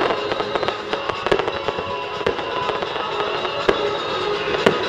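Aerial fireworks bursting overhead, sharp bangs about once a second with crackle between them, over loud music playing throughout.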